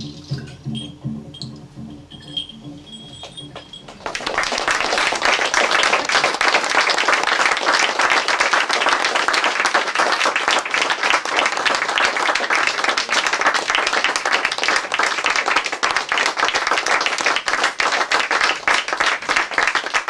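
Quiet live band music ends on a low repeating bass figure with a few high tinkling notes. About four seconds in, the audience breaks into loud, sustained applause, which cuts off abruptly at the end.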